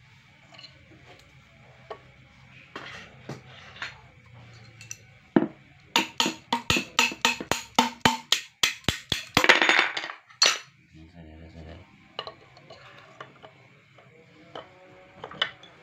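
Metal water-pump parts being handled: light knocks and clinks, then a fast run of sharp metallic clicks, about four a second, followed by a short scraping rush and a last click.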